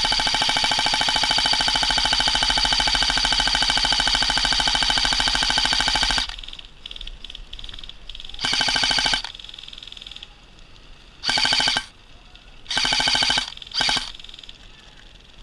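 Airsoft electric gun (AEG) firing on full auto: one long burst of about six seconds with a fast, even rate of fire and a whirring gearbox tone, then four short bursts.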